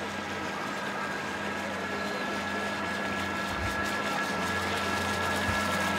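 Radio-controlled model boat's motor running at speed with a steady high whine over the rush of its wake, growing slightly louder as the boat approaches.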